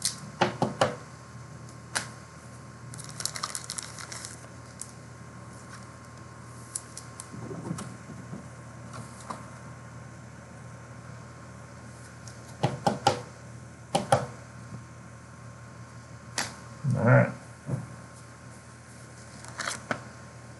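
Trading cards and card holders being handled on a table: scattered light clicks and taps, with a cluster of fine ticks about three seconds in and a louder, muffled thump about 17 seconds in, over a steady electrical hum.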